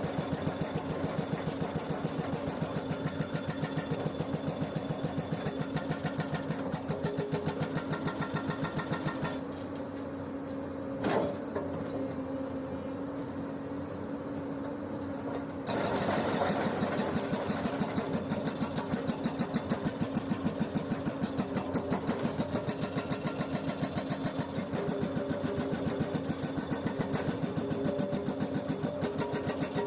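Hydraulic breaker on a Hyundai 210LC-7 excavator hammering in a rapid, steady rhythm of several blows a second over the excavator's diesel engine. The hammering stops for about six seconds in the middle, leaving the engine running with a single knock, then starts again.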